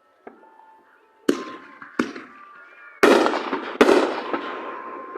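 Fireworks going off: four sharp bangs in quick succession. The last two are the loudest, each followed by a long, fading echo.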